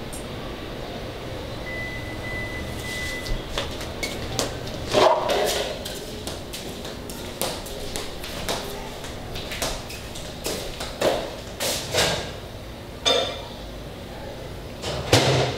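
Footsteps and scattered knocks and bumps of a person moving about a room, with a louder knock near the end. A brief steady high tone sounds about two seconds in.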